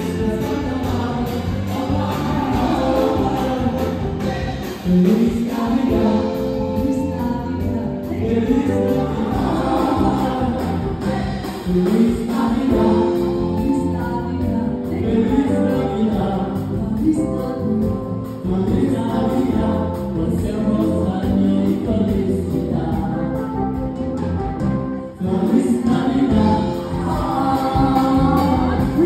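A live band plays a song while a man and a woman sing together into microphones, backed by electric bass guitar and drums.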